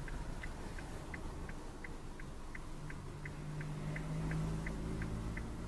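A car's turn-signal indicator ticking steadily inside the cabin, about three ticks a second, over the low hum of the engine while the car waits to yield at an intersection. About three seconds in, the engine note grows louder as the car pulls out.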